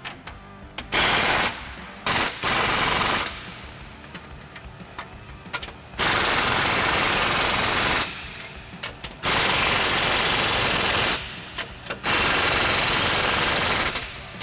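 Impact wrench hammering down the nuts on leaf-spring U-bolts. It comes in five bursts: two short ones early, then three of about two seconds each, with quieter handling of the tool and parts in between.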